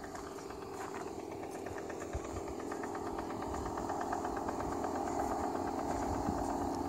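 A motor vehicle's engine running steadily on the highway, growing gradually louder.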